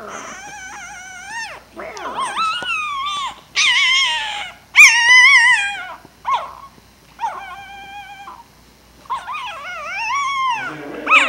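A litter of very young puppies whimpering and whining, a run of high, wavering cries, sometimes two at once; the loudest comes about five seconds in.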